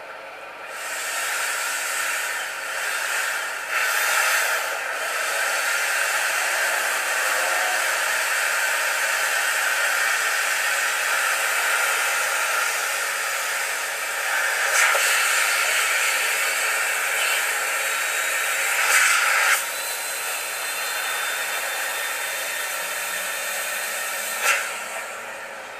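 Vacuum cleaner running on its blow function, forcing air through a hose into an inflatable dinghy's pontoon. It makes a steady rush of air that swells about a second in and cuts out shortly before the end, with a few sharp knocks in the second half. The blower only partly inflates the boat and leaves it still soft.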